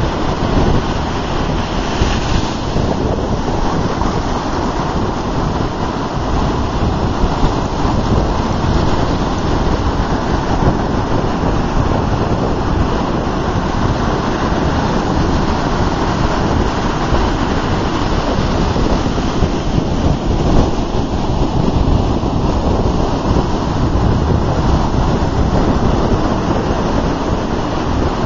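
Ocean surf: waves breaking and washing up the sand in a loud, constant rush of noise that swells and eases slightly.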